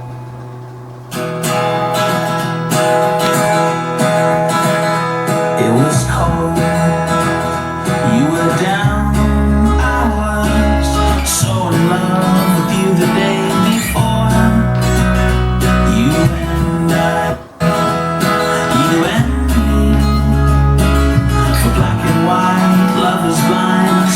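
Song with strummed acoustic guitar; a deep bass line comes in about six seconds in and grows heavier a few seconds later.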